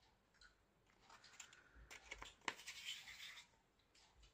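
Faint scraping and light clicks of small plastic acrylic-powder pots being handled and set down, with one sharper click about two and a half seconds in.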